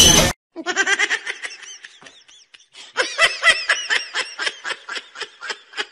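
A person laughing in quick, rapid pulses, in two stretches with a short pause between them. A burst of loud music cuts off right at the start.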